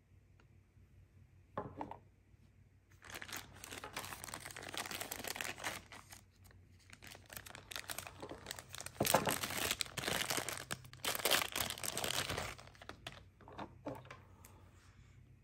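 Clear plastic packaging bag crinkling and rustling as it is pulled open and handled, starting about three seconds in and running for roughly ten seconds, with a short rustle before it and a few small handling clicks near the end.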